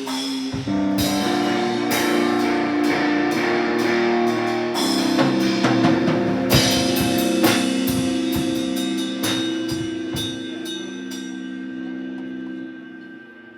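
A live instrumental rock band playing: guitar chords over a drum kit with cymbal hits. Near the end the drums stop and the last chord rings out and fades.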